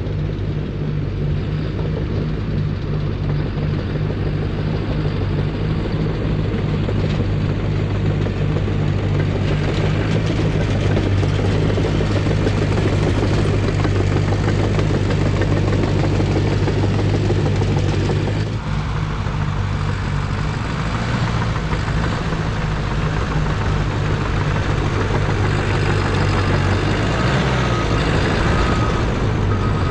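Caterpillar D5 dozer's diesel engine running steadily while working dirt, its sound shifting about two-thirds of the way through.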